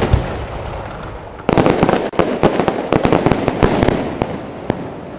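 Aerial fireworks going off in rapid volleys of sharp bangs and crackles. A dense volley dies away at the start, a fresh one breaks out about a second and a half in and fades, and one last single bang comes near the end.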